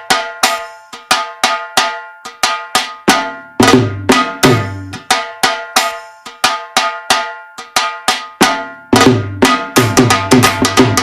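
DJ remix music built on a fast, dense run of sharp percussion hits. A heavy bass drum comes in briefly a few seconds in and returns near the end.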